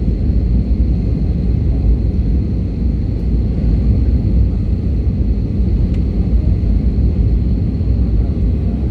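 Airbus A320 airliner's jet engines making a steady low rumble on its landing approach, with a faint steady high whine over it.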